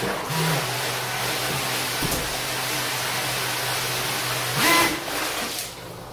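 3D-printed M-Jet 30 jet drive, powered by a 4076 brushless motor, running at low throttle with the boat held in a bathtub: a steady low motor hum under the hiss and churn of water thrown by the jet. A brief louder surge comes a little before the end, then the sound drops.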